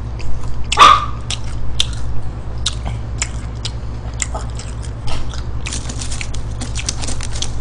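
Close-miked chewing of fast food: a scatter of short wet mouth clicks and smacks, a louder one about a second in, over a steady low hum.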